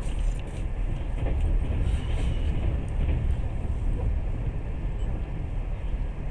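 Passenger train running, a steady low rumble of the carriage and its wheels on the rails heard from inside the car.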